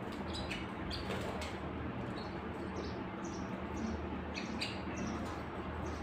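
Domestic canaries giving short, high chirps, scattered a couple of times a second in loose groups rather than a continuous song, over a steady low background hum.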